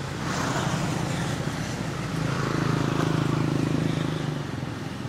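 A motor vehicle's engine going past, a steady low hum that swells from about two seconds in and fades near the end.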